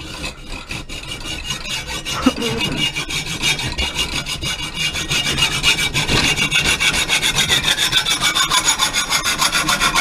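Hacksaw blade sawing through copper tubing by hand, back-and-forth strokes at about four a second, cutting the soldered joints off so the clean pipe can go as #1 copper.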